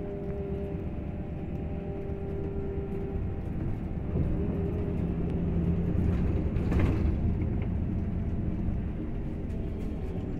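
Irisbus Crossway 12 m bus heard from inside the passenger cabin while driving: steady diesel engine and road rumble. The engine note grows louder about four seconds in, and a short clatter comes just under seven seconds in.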